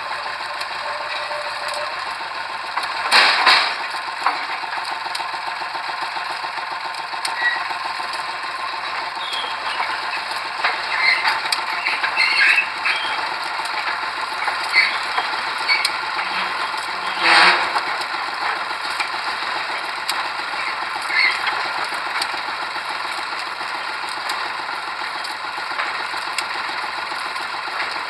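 Pile-driving machinery running with a steady, rapid mechanical clatter. Two louder short bursts stand out, about three seconds in and again about seventeen seconds in.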